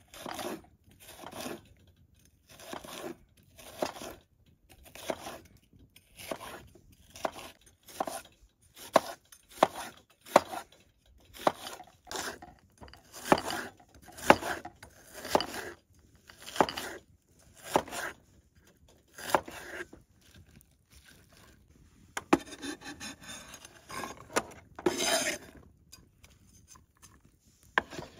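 A large knife slicing an onion on a wooden cutting board, one crunching cut with a knock on the board about every second. Near the end the cutting stops and there is a longer rough scraping and rustling as the slices are gathered up.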